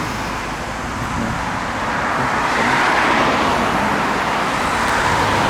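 Road traffic: cars passing by, a steady rush of tyres and engines that swells as each car goes past, loudest about three seconds in.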